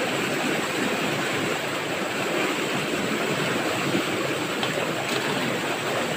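River water rushing steadily over rocks in a small cascade.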